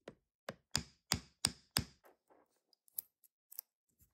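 Wooden mallet knocking a bent stainless-steel watch bracelet clasp flat against a wooden bench: six sharp knocks about three a second, followed by lighter metallic clicks as the clasp is handled.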